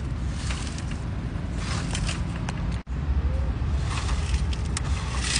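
Plastic drum of a toy cement mixer truck turned by hand, the chalk and plaster dust inside sliding and scraping in soft patches over a steady low rumble. The sound drops out for an instant a little over halfway through.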